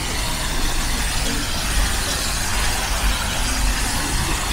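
Steady city street noise: a constant low rumble of traffic under an even hiss.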